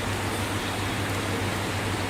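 Steady noise with a constant low hum underneath.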